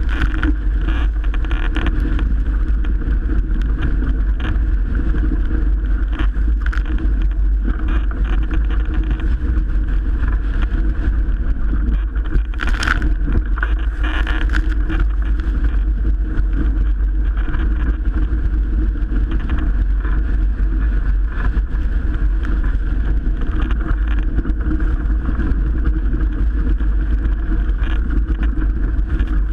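Strong wind buffeting the microphone, with the rush of water past a Melges 24 sailboat's hull, loud and steady; a brief louder rush comes about thirteen seconds in.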